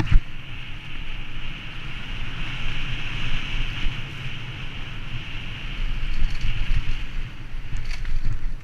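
Wind rushing over a helmet-mounted camera microphone as a mountain bike descends a dirt singletrack at speed, with rumbling tyre noise and the bike rattling over the ground. There is a sharp knock right at the start.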